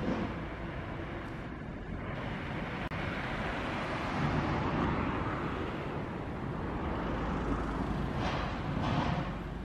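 Road traffic noise: cars passing on a nearby street, their tyre and engine sound swelling about four seconds in and again near the end.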